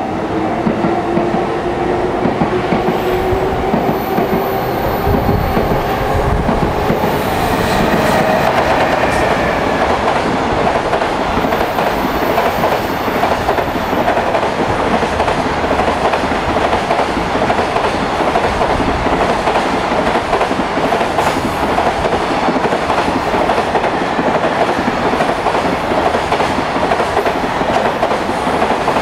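JR Freight container train passing at speed. A whine rises in pitch over the first several seconds as the locomotive comes through, then the container wagons' wheels give a steady clatter and rumble over the rail joints.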